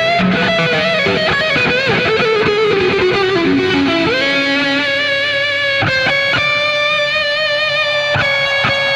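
Electric guitar solo: a run of quick notes, then from about four seconds in one long note held with vibrato, broken twice by short breaks before a new held note begins at the end.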